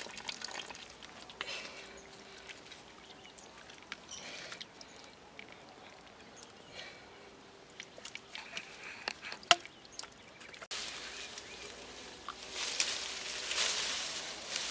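Hands working wet mud around plastic pipes: faint squelching and trickling with scattered small clicks and one sharp knock just past the middle. After a sudden change, a louder rustling of leaves and branches as someone pushes through brush.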